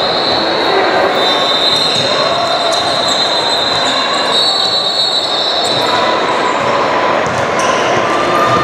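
Basketball game in a gym: a ball bouncing on the hardwood and players' voices echoing in the hall. A high squeal runs through roughly the first five seconds.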